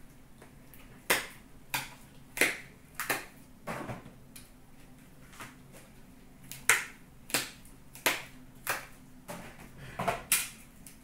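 A scattered series of sharp clicks and taps, about one a second, from trading cards and their packs being handled and set down.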